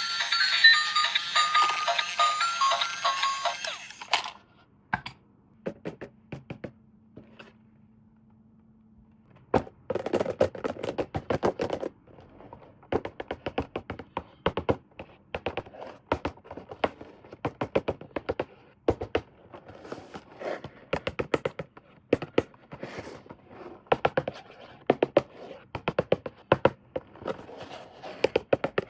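A short tune with high stepped notes cuts off about four seconds in. After a nearly quiet gap with a few clicks, a dense run of quick plastic clicks, taps and knocks follows: toys and their packaging being handled.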